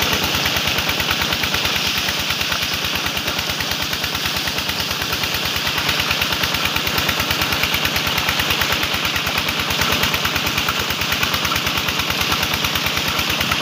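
Tubewell running: water gushing from its outlet pipe into a concrete tank and splashing around a bather, over a rapid, even pulsing throb from the pump.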